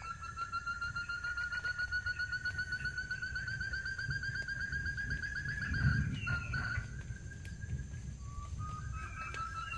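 Barred buttonquail (puyuh tarung) giving its long rolling trill, a rapid purring call that climbs slightly in pitch for about six seconds. A short note follows, and a second trill begins near the end. A low rumble runs underneath, with a thump about six seconds in.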